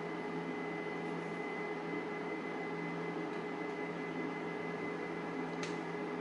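Steady background hum and hiss with a few constant tones, and a single faint click about five and a half seconds in.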